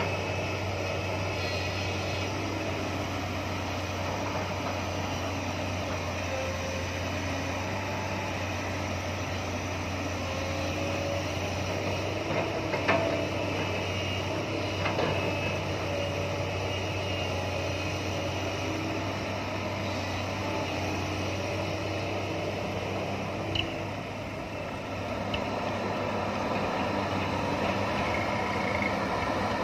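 JCB crawler excavator's diesel engine running steadily as it digs and loads soil into a dump truck, with a couple of brief knocks about halfway through.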